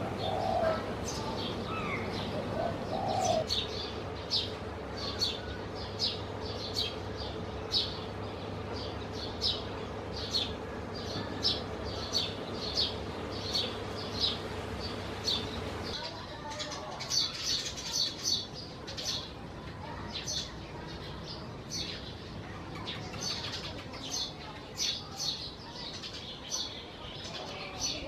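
House sparrow chirping over and over, short sharp chirps about two a second. In the first few seconds a dove coos a few times underneath.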